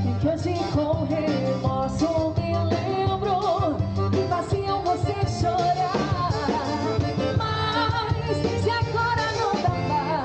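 Live band music through a PA: a woman singing into a microphone over an electronic keyboard, with a bass line that changes in steps and a steady dance beat.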